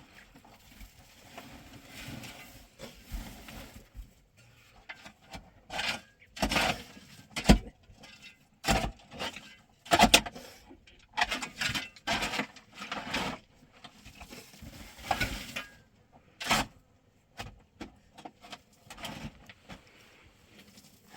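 Irregular scraping and rubbing with several sharp knocks, the loudest about halfway through.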